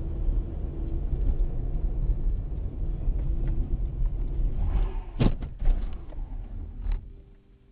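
A car driving with a heavy, steady low rumble. About five seconds in there is a sharp bang, then a few lighter knocks, and the rumble dies away near the end.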